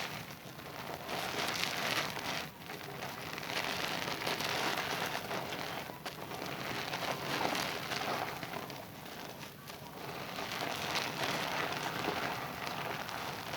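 Wet hands rubbing and working a Zest bar soap into a lather: a wet hiss that swells and fades with each rub, every second or two.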